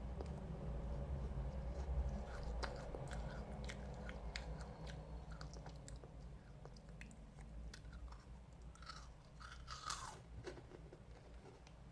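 Close-up crunching and chewing of a crisp meringue cookie, many small dry cracks as it is bitten and ground between the teeth.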